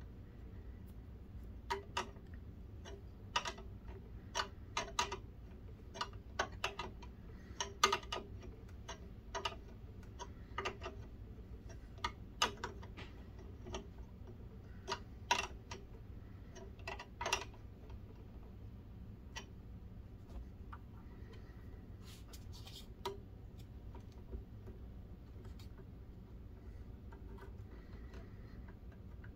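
Irregular small clicks and taps of fingers working the metal hose fittings on a model excavator's hydraulic boom cylinder, coming thick and fast at first and thinning out later, over a steady low hum.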